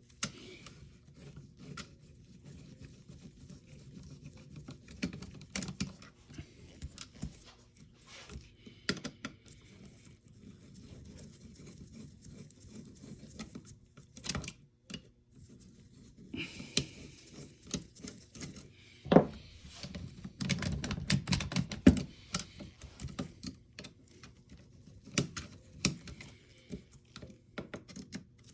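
Irregular clicks, knocks and rattles as an airsoft rifle's rail handguard and its parts are worked loose and handled, with two sharper knocks about two-thirds of the way in.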